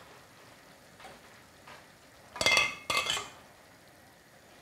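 A metal spoon scraping and clinking against a stainless steel pan as dumplings are spooned out into a bowl: a few faint knocks, then two short, ringing clinks about half a second apart.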